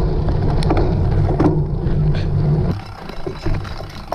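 Wind buffeting the microphone, with scattered clicks and rattles over it; the rumble drops away suddenly about two-thirds of the way through.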